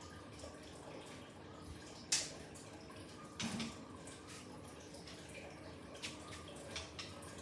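Water dripping and splashing, with two louder splashes about a second apart in the first half and lighter ones later, over a faint steady hum.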